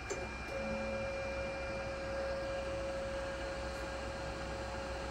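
Power feed of a TOS-Kuřim FNK 25A vertical turret milling machine driving the cross (in-and-out) travel at feed speed: a click, then from about half a second in a steady whine over a constant low hum.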